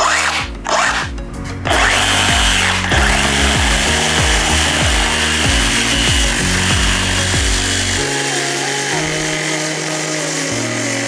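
DeWalt DCS382N 20 V cordless reciprocating saw, fitted with a coarse-toothed Lenox wood blade, cutting through a thick wooden beam. A couple of short bursts come as it starts, then it runs steadily through the cut from about two seconds in.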